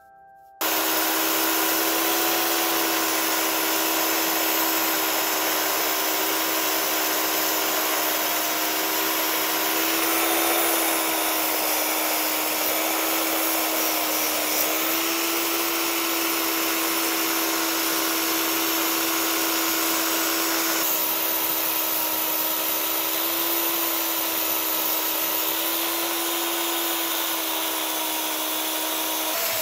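Small high-speed electric motor running steadily with a strong hiss of air, like a power tool or workshop vacuum, switched on abruptly and then switched off at the end, its pitch sliding down as it winds down.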